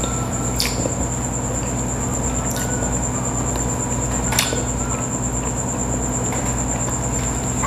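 A person chewing a soft cookie coated in chocolate sauce with the mouth closed: three short wet mouth clicks about two seconds apart, over a steady electrical hum with a thin high whine.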